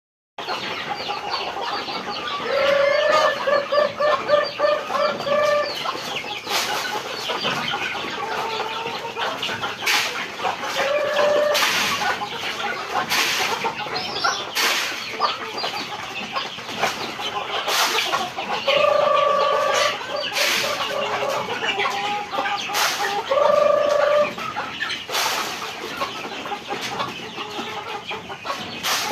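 A flock of native chickens clucking continuously, with several runs of quick repeated hen calls. Sharp clicks come every couple of seconds.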